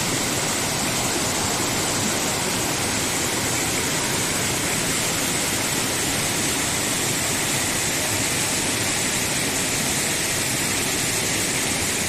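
Small waterfall: water rushing steadily over rock shelves, an even unbroken hiss.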